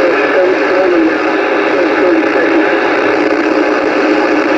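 Uniden Bearcat BC-980SSB CB radio receiving band static: a loud, steady hiss through the radio's speaker, with faint wavering tones in it.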